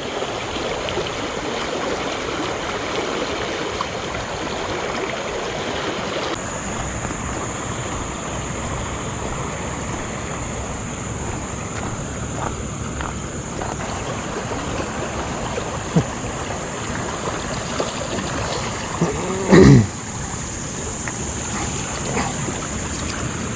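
Steady rush of flowing stream water, with a sharp click a little past halfway and a short loud sound that falls in pitch about three-quarters of the way through.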